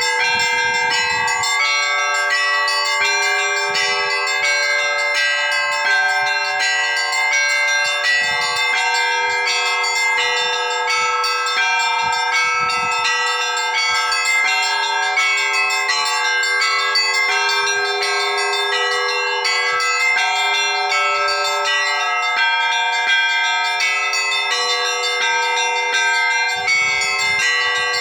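Orthodox monastery bells ringing together in a continuous peal: many bells are struck in quick succession over steady, overlapping ringing tones.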